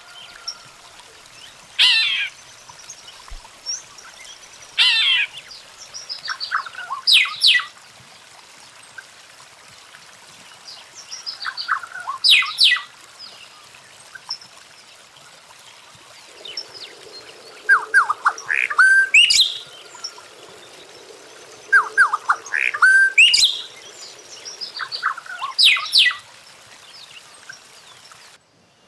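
A colony of weaver birds calling at their hanging nests: short bursts of sharp chattering calls and fast trills every couple of seconds, overlapping in the second half.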